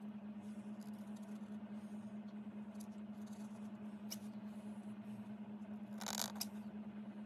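Broad-nibbed calligraphy pen scratching faintly across paper as it lays down an ink stroke, with a brief louder scrape about six seconds in. A steady low hum runs underneath.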